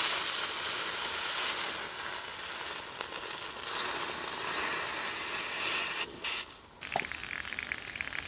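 Hot plaster investment mold in a steel can, kept at about 1100 °F for the pour, being quenched in a bucket of water: a steady hiss of water flashing to steam. It drops off briefly about six seconds in and comes back as a lighter, bubbling sizzle.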